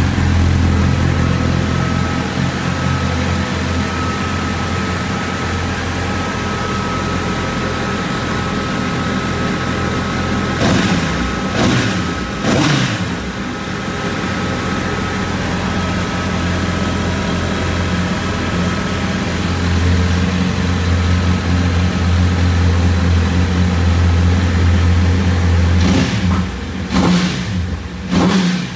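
Honda CBR1000RR inline-four engine idling steadily during a throttle-body synchronisation. It is blipped up and back down a few times about ten seconds in, and again near the end.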